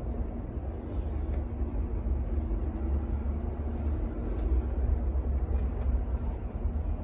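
Steady low rumble with a faint hum above it.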